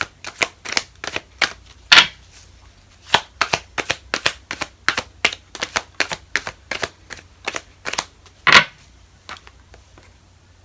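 Tarot cards handled and shuffled by hand: a quick run of sharp card slaps and taps, about three a second, with a louder slap about two seconds in and another near eight and a half seconds, after which they thin out.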